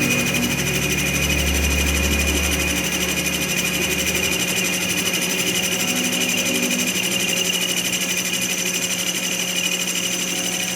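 A machine running steadily with a constant hum and a fine rapid chatter; a deeper rumble joins in for a few seconds early on.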